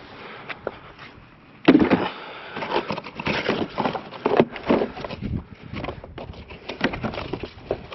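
Irregular knocks, rattles and scrapes of objects being handled and moved, starting suddenly about two seconds in and going on in a busy, uneven run.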